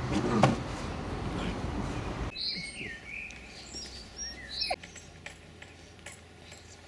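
Irish wolfhound puppies playing and scuffling, with a short yip about half a second in. After about two seconds the sound cuts to a quieter background where small birds chirp several times.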